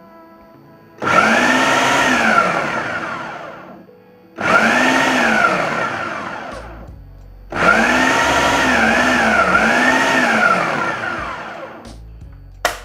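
Ninja food processor motor pulsing in three runs, each spinning up and winding down, the last made of three quick pulses in a row, cutting cold butter cubes into flour for pie dough. A sharp click comes near the end.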